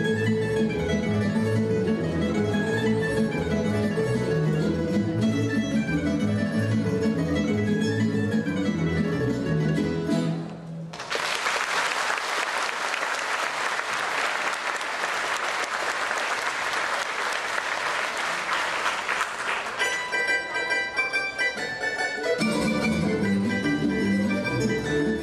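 Tamburica ensemble, small plucked tamburicas over a double bass, playing a tune that ends about ten seconds in. Audience applause follows for about eight seconds. Then the tamburicas alone start again, and the bass comes back in near the end.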